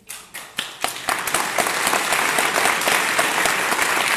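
Audience applause: a few scattered claps that build within about a second into dense, steady clapping.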